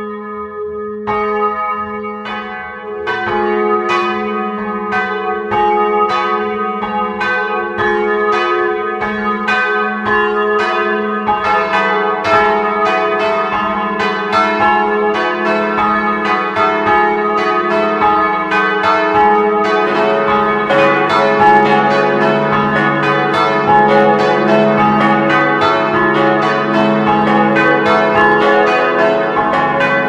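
Simulated peal of four swinging church bells tuned C♯–E–F♯–A♭ (three bronze bells cast in 1929 plus an added smallest bell), rung in the cross rising pattern. The overlapping strokes build as bells join in over the first few seconds, and a deeper bell comes in about two-thirds of the way through, filling out the ringing.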